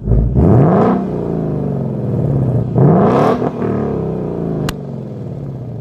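A car engine revved twice, the pitch climbing sharply just after the start and again about three seconds in, falling back to a steady run in between, with a single sharp click near the end.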